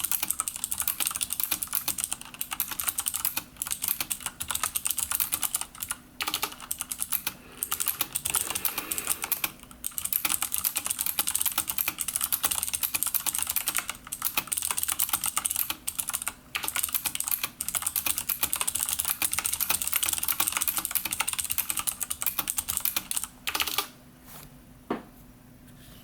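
Fast, continuous typing on a CM Storm mechanical keyboard with Cherry MX Blue clicky switches, each keycap fitted with a rubber O-ring to dampen bottoming out. Dense key clicks with a few short pauses, stopping shortly before the end, followed by one last tap.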